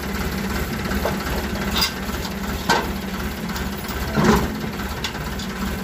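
Farm tractor's diesel engine idling with a steady low pulsing rumble. Three sharp metallic clanks come about two, three and four seconds in, the last the loudest, as the trolley's front stand and hitch are handled.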